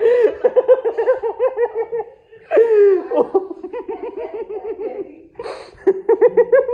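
A woman laughing hard in rapid, high-pitched pulses of giggling, broken by a short pause about two seconds in and a falling squeal of laughter just after it.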